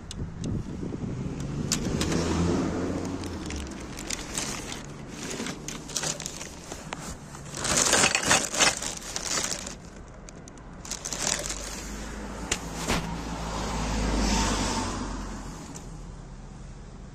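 Rummaging through rubbish in a dumpster: plastic crates knocking and plastic bags crackling, loudest in a burst of rustling about eight seconds in. Twice a car passes, its engine hum swelling and fading, once early and again near the end.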